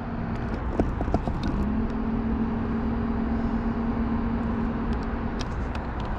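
Small electric motor of a motorized pool float humming: a few short blips about a second in, then a steady hum that stops near the end.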